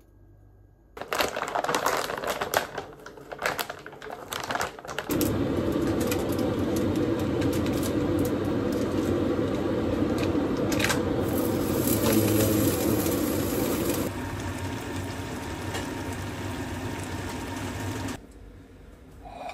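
Puri frying in hot oil. First a run of irregular crackles and clicks, then a steady sizzle for about nine seconds. The sizzle turns quieter for a few seconds and stops shortly before the end.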